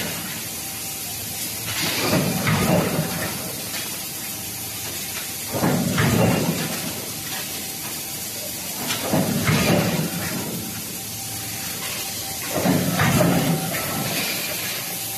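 Mechanical forging press on an automatic induction-heating billet forging line, cycling four times about every three and a half seconds; each stroke is a noisy burst of about a second and a half with a deep thud and a hiss.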